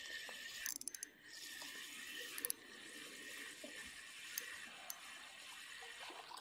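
Spinning reel being cranked steadily to retrieve a hooked perch, its gears giving a faint, steady whir, with a quick run of clicks about a second in.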